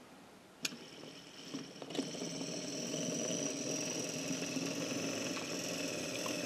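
OO-gauge model tank locomotive (Planet Industrials Kerr Stuart Victory) running slowly while shunting wagons: its motor gives a steady high whir over the rumble of small wheels rolling on the rails. It starts about two seconds in, after a single click.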